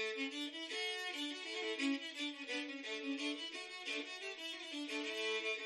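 Background music: a fiddle playing a tune in quick notes, several a second.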